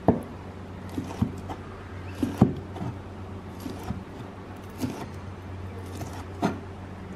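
Kitchen knife slicing boiled liver on a wooden chopping board: the blade knocks sharply on the board at each cut, at an uneven pace of roughly one cut a second, over a low steady hum.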